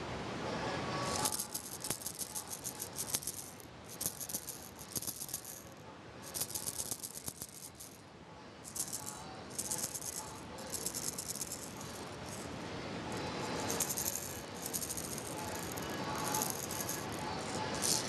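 A toy rattle shaken in short bursts with brief pauses between them, starting about a second in.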